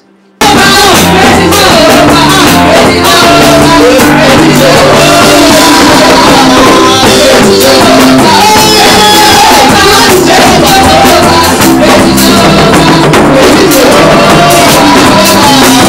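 Loud praise-and-worship music with singing over a steady beat, starting abruptly about half a second in.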